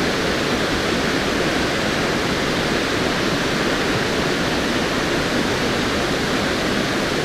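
A creek running high and fast: a steady, even rush of water with no let-up.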